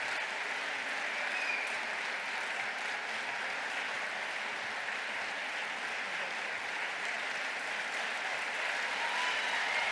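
A large audience clapping steadily, a dense, even applause that keeps going throughout.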